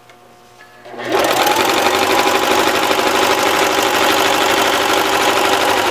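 Electric sewing machine with a walking foot running at a steady, fast stitch, starting about a second in and stopping right at the end, as it sews a three-step zigzag through fold-over elastic binding.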